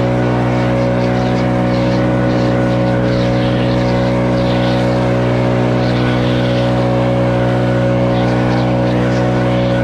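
Motor-driven blower running steadily at one speed, used to blow water off freshly power-washed concrete.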